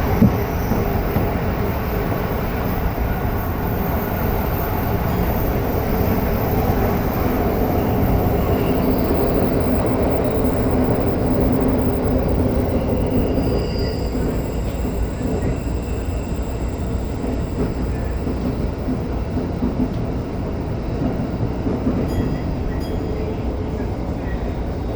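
Tokyo Metro 05 series electric train running at speed, a steady rumble of wheels and traction equipment heard from inside the car.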